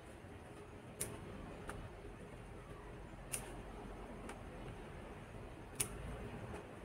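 Fresh vegetable stems snapped off by hand: five short, sharp snaps at irregular intervals, the loudest near the start, in the middle and near the end.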